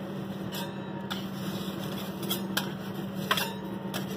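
Metal spatula clicking and tapping against a steel flat-top griddle about six times, over a steady low hum and hiss from the griddle and kitchen.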